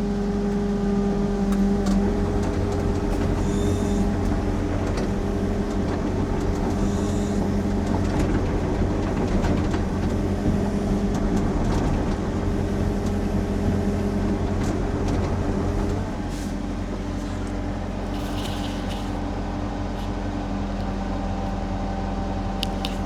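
Sany SY50U mini excavator's diesel engine running steadily under hydraulic load as the machine slews and tracks backward, with occasional metal clanks. The engine note eases a little about two-thirds of the way through.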